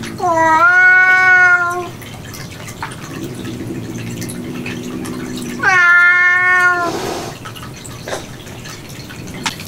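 A domestic cat giving two long, loud meows about five seconds apart, each sliding up at the start and then held steady. A quieter low, drawn-out moan comes before each meow.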